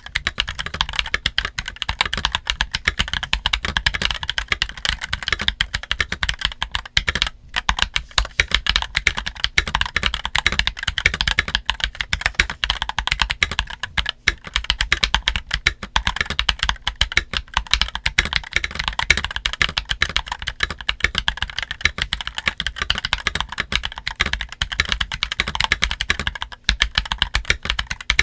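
Continuous fast typing on an MK870 mechanical keyboard in its stock build, with a steel plate, plate-mounted stabilizers, JWK Black linear switches and DCX keycaps: a dense stream of keystrokes, with brief breaks about 7 and 14 seconds in.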